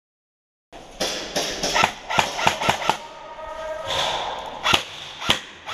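Airsoft guns firing: a quick run of sharp cracks, then a few single sharp shots, starting after a brief silence.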